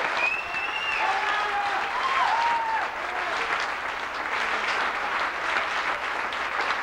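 Church congregation applauding in a large, even clatter of clapping, with a few voices calling out in the first couple of seconds.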